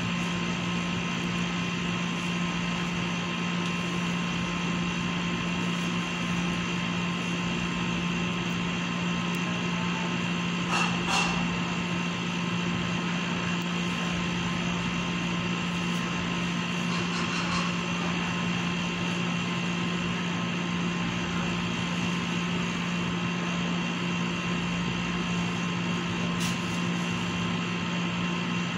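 Steady machinery hum: a low drone with fainter, higher whining tones above it, holding an even level. A brief, sharper sound stands out about eleven seconds in.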